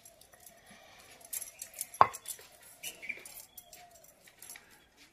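Stone roller knocking and scraping on a sil-batta grinding slab as masala paste is ground and gathered, with glass bangles clinking in quick, light ticks; one sharp stone-on-stone knock about two seconds in is the loudest sound.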